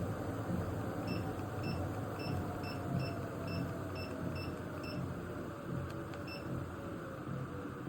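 Under-desk walking pad treadmill running with a motor whine that slowly falls in pitch. A quick run of about ten beeps sounds between about one and five seconds in.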